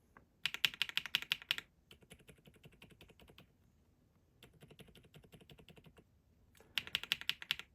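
Rainy 75 mechanical keyboard keys pressed in fast runs of clacks: a louder run about half a second in and another near the end, with softer, quieter clicking between. It is a sound test of newly fitted silent tactile switches, which sound a lot quieter.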